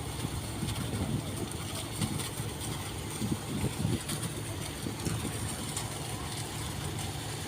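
A moored boat's engine idling with a steady low hum while it is being test-run.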